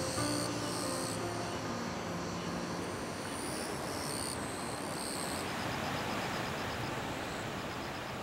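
Soft background music with held notes fading out over the first few seconds, leaving a steady rushing outdoor noise. Past the middle, a faint, rapid, high-pitched trill comes and goes.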